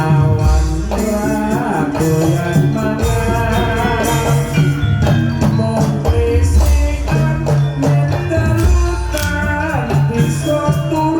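Javanese jaranan accompaniment music: a gamelan-style ensemble of drums and tuned metal percussion with jingling bells, playing a steady, busy rhythm.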